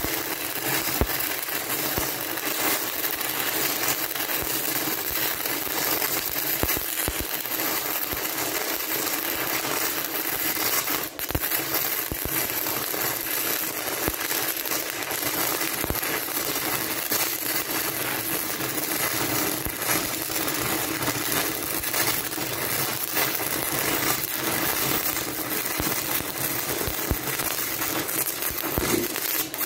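Stick-welding arc from a 6010 electrode, crackling steadily during an overhead root pass, dipping briefly about eleven seconds in.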